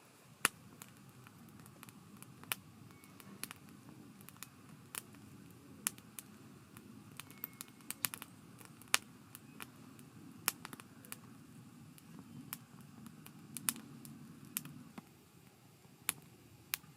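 Wood campfire crackling: sharp pops at irregular intervals, about one or two a second, over a steady low background.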